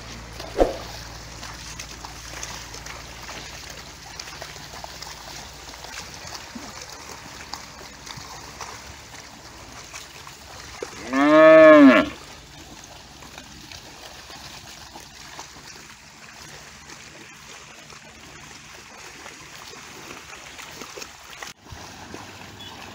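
Water buffalo lowing once, a single loud moo of about a second midway, rising then falling in pitch. A brief sharp knock sounds just under a second in, over a steady faint outdoor hiss.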